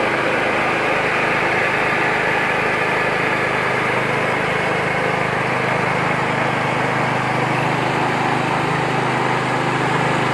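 Mini multi-function rice huller-polisher (820 Pro) running steadily under load, milling paddy into white rice in a single pass.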